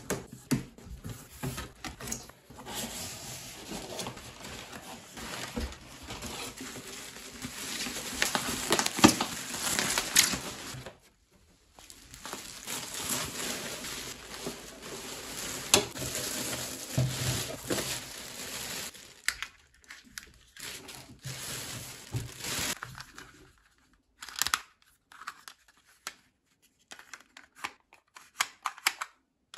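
Bubble wrap and a plastic bag crinkling and rustling as they are pulled off and unwrapped, with a short break about a third of the way through. Near the end the rustling gives way to a few scattered handling knocks.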